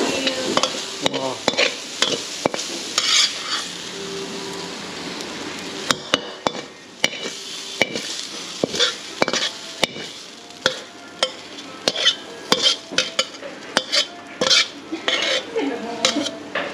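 A metal ladle stirs and scrapes a sizzling stir-fry of glass noodles and vegetables in a wok. From about six seconds in the sizzle dies down, and the ladle's repeated scrapes and clicks against the wok stand out.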